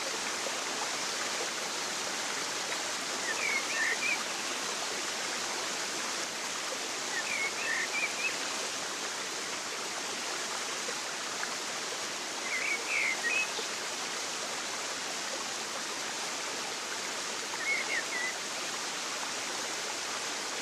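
Steady rush of flowing water, with a small bird chirping briefly four times, about every four to five seconds.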